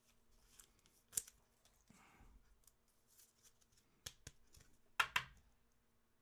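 A trading card being slipped into a plastic sleeve and rigid plastic top loader. There are light clicks, a faint rustle, and a louder scrape of plastic about five seconds in.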